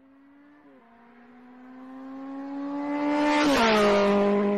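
Car engine drive-by: a steady engine note swells from faint to loud over about three seconds, then drops in pitch with a rush of noise as it passes.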